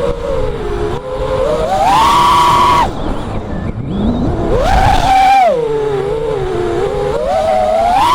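Brushless motors and propellers of a 4S FPV quadcopter, recorded onboard, whining in pitch that rises and falls with the throttle. The whine climbs sharply about two seconds in and drops off abruptly near three seconds, surges again around five seconds, and climbs once more near the end, over a low rumble of airflow.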